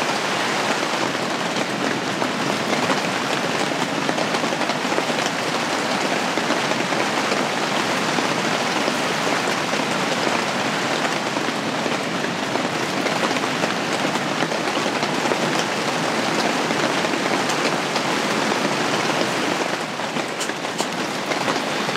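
Steady rain falling on a camping shelter's fabric roof and walls. Near the end, a few sharp clicks as a camping stove is lit.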